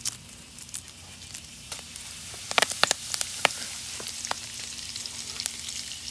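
Curry leaves frying in hot oil with mustard seeds and cumin, a tempering in a stainless steel kadai. It is a steady sizzle that builds from about a second in, with a few sharp pops and crackles in the middle.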